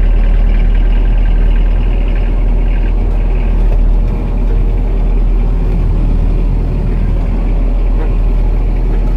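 Self-propelled crop sprayer's four-cylinder Peugeot diesel engine running as the sprayer drives off at low speed, heard from inside the cab as a loud, steady low rumble.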